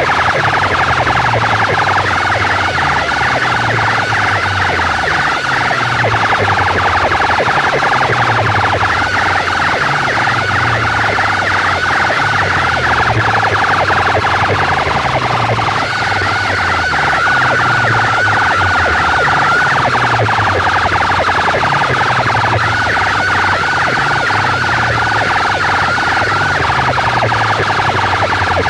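Very loud music blasted through a tall stack of horn loudspeakers: a repeating stepped bass line under a warbling, siren-like high tone.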